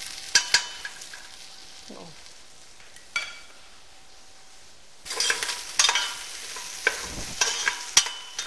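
Sliced onions sizzling gently in oil in a stainless steel pot while a spatula scrapes and knocks against the pot as they are stirred; the onions are being browned over low heat. The stirring is sparse in the first half, then busier with more frequent knocks from about halfway.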